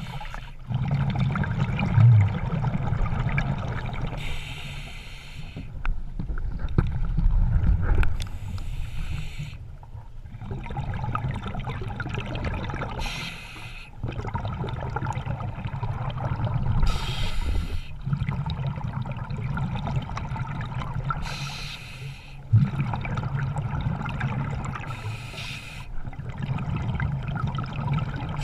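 Moving water sloshing and gurgling over a steady low rumble, with a short hissing splash now and then.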